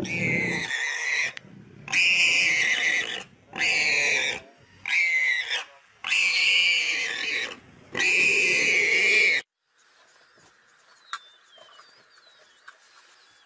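Warthog screaming in distress while lionesses feed on it: a run of about six loud, high-pitched squeals with short gaps. The squealing cuts off abruptly about nine seconds in, leaving only faint bird chirps.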